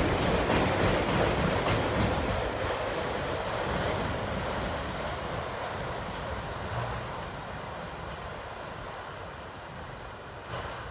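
Autorack freight cars rolling past on the rails, a steady rumble and rattle of wheels and car bodies. It fades steadily as the end of the train goes by and moves away.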